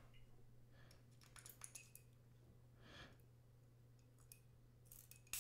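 Near silence with a low steady hum and a few faint clicks from a glass perfume spray bottle being handled, a slightly sharper click near the end.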